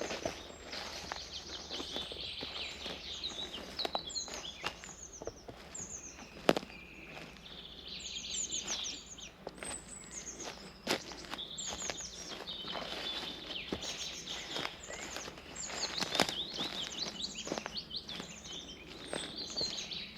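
Forest birds singing almost continuously, in quick series of short falling notes, over footsteps on a forest path. One step stands out sharper and louder about six seconds in.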